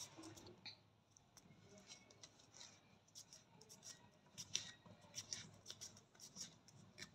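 Faint, irregular rustling and small ticks of fingers rubbing a ready-to-use wax strip, smoothing it down onto the armpit skin.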